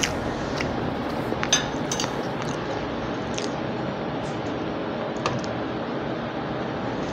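A metal fork clinks against a plate a few times in short sharp ticks as food is picked up. Steady background noise runs underneath.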